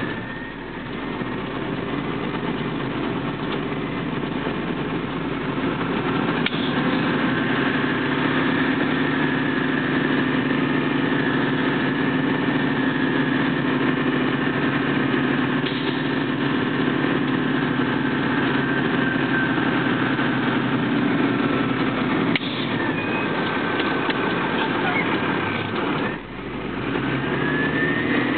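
Large vehicle's engine and drivetrain running at low road speed, heard inside the cab as a steady drone with a whine above it. The level dips briefly just after the start and again about 26 seconds in, and a rising whine comes near the end as it pulls away again.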